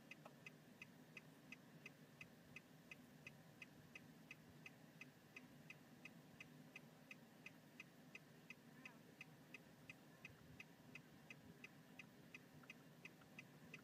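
Near silence: faint, regular ticking about three times a second over a faint low hum.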